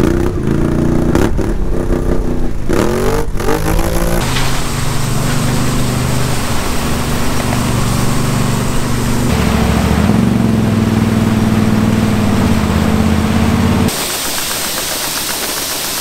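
Vehicle engine revving up and down, then running steadily, its pitch and loudness changing abruptly a few times.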